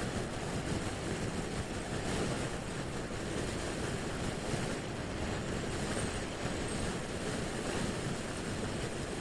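Steady wind rush buffeting the action camera's microphone on a motor scooter cruising at road speed, with road and engine noise blended underneath and no distinct engine note.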